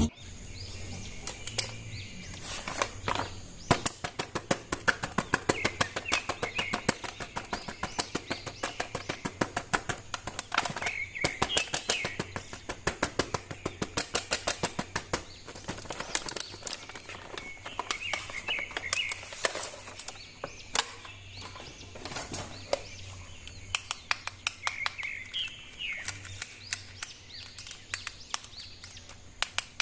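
Rapid, irregular clicking and rattling of hard plastic toy parts being handled and fitted together, over a low hum. Birds chirp now and then in the background.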